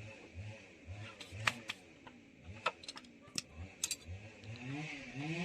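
Hand tools clicking and clinking against metal parts during motorcycle repair work, in a handful of sharp separate clicks, over a faint low hum that rises and falls in pitch about twice a second.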